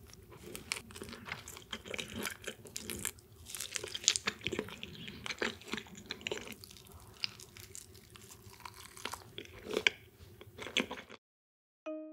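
Close-miked chewing of sushi: wet mouth smacks and many sharp little clicks of biting and chewing, cutting off abruptly about a second before the end.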